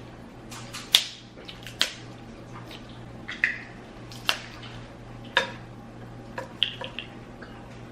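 Close-miked eating: a string of sharp clicks and wet smacks, the loudest about a second apart, over a low steady hum.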